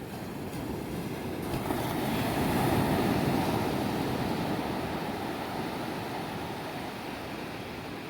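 Ocean surf on a beach: a steady wash of waves, with one wave breaking and swelling loudest about three seconds in, then slowly washing back down.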